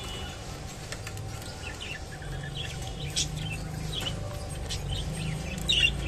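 Albino budgerigars chirping: scattered short, high chirps throughout, with a louder cluster of calls near the end, over a low background rumble.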